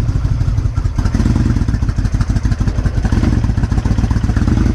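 Kawasaki Vulcan 1600 Classic's big V-twin engine running at idle, in gear with the clutch pulled in, just before pulling away.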